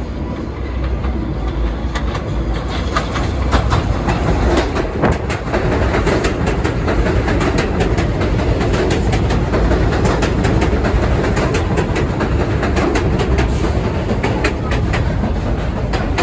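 New York City subway train running close alongside on an elevated track, with a steady, loud rumble of wheels on rail. Rapid clicks start about two seconds in, as the wheels cross rail joints and switches, and run on as the cars pass.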